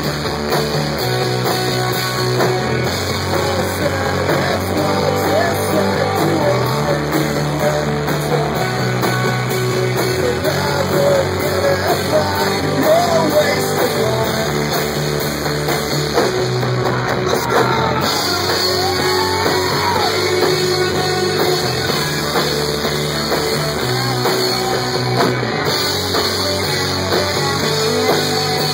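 Live rock band playing loud: electric guitar and drums, with a singer at the microphone.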